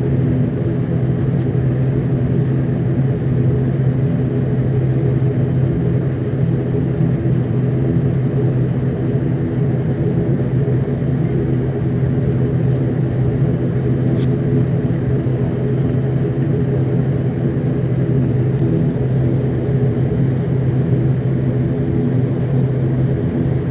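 ATR turboprop's engines and propellers heard inside the passenger cabin as the airliner taxis toward the runway before takeoff: a loud, steady drone with a low hum and several steady tones.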